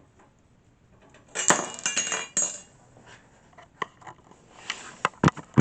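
Thin sheet-metal PCIe slot cover clinking and ringing as it is worked out of a computer case. The clatter comes about a second and a half in, and a few sharp clicks follow near the end.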